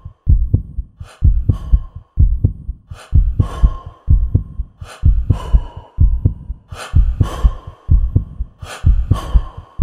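Heartbeat sound effect, a low double thump about once a second, with breathing sounds over it every couple of seconds.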